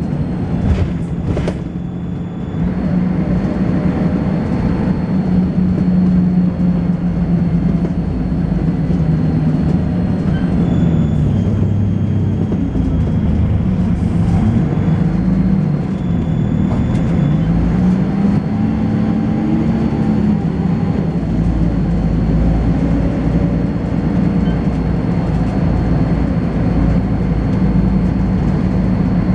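Volvo B10BLE bus's diesel engine and ZF automatic gearbox heard on board while driving: the engine note drops and climbs again a few times midway through as the gearbox changes gear, over a thin, steady, high-pitched whine. A deep rumble comes in about two-thirds of the way through.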